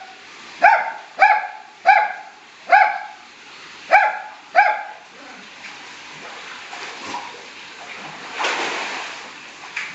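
A small dog yapping: six short, sharp, high-pitched barks in the first five seconds, then it stops. A short rush of noise follows about eight and a half seconds in.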